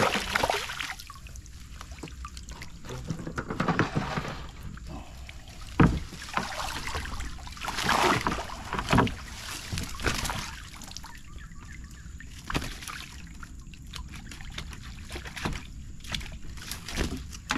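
Fish thrashing and splashing in the water inside a wire-mesh fish trap as it is hauled up against a wooden boat, in repeated short bursts, with a sharp knock about six seconds in.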